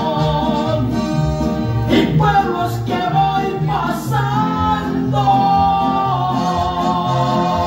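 Loud dance music with singing, plucked guitars and a steady repeating bass line, playing through a party sound system in a hall.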